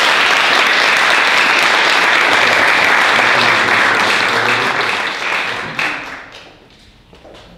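A small audience applauding, steady and loud, then dying away about six seconds in.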